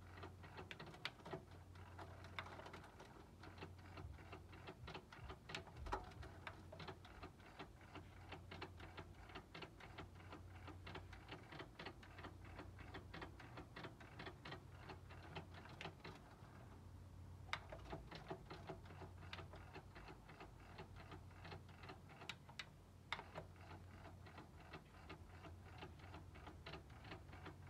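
Sony three-head cassette deck ticking rapidly and unevenly from its tape transport, over a low steady hum. The ticking is the fault the deck is showing. It eases off briefly a little past halfway, then carries on.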